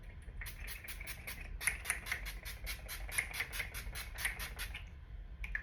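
Makeup setting spray misted onto the face in about twenty quick, evenly spaced hissing spritzes, about four a second.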